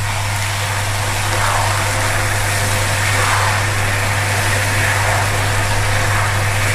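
Hot water poured from a kettle into a pan of frying okra and potato masala, giving a steady hiss of sizzling and bubbling that swells about a second in, over a constant low hum.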